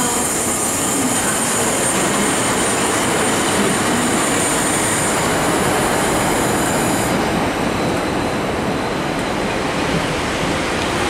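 GWR Class 150 Sprinter diesel multiple unit pulling into the platform, its engines and wheels running steadily past at close range. A high-pitched squeal stops about seven seconds in.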